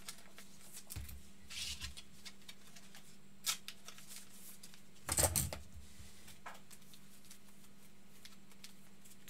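2018-19 Donruss soccer trading cards being handled and slid one past another in soft rustles and clicks, with the loudest rustle about five seconds in.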